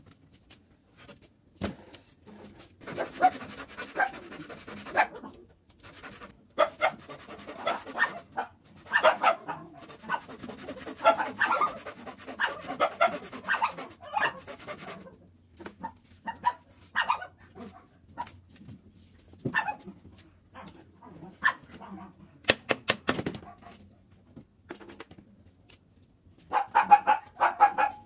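Small dog barking and whining in bursts, with a few sharp knocks in between from work on the wooden pallet.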